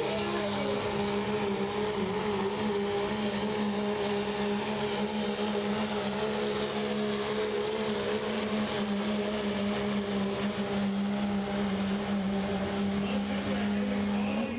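Dodge Ram pickup's turbocharged Cummins diesel held at high, steady revs under full load, dragging a truck-pulling weight-transfer sled.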